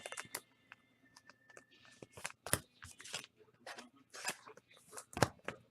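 Trading cards and their plastic wrappers and sleeves being handled: irregular crinkling and rustling with scattered sharp clicks.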